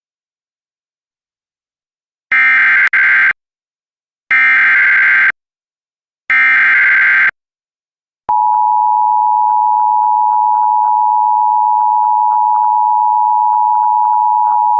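Emergency Alert System signal: three harsh, buzzing bursts of digital header data, each about a second long and a second apart, starting about two seconds in. A loud, steady, single-pitched attention tone follows and holds to the end. Together they announce a Severe Thunderstorm Warning.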